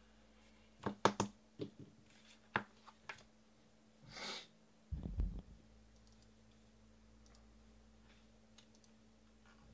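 A handful of sharp clicks and taps, the loudest about a second in, then a short hiss about four seconds in and a low thump about a second later.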